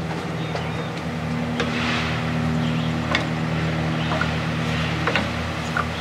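Band saw motor running steadily, with several light knocks as small cedar boxes are set down on the metal saw table.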